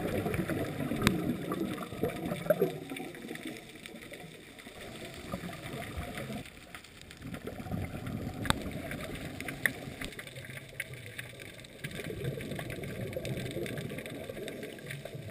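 Muffled underwater water noise picked up by a submerged camera: a low, shifting rush of moving water with a few scattered sharp clicks.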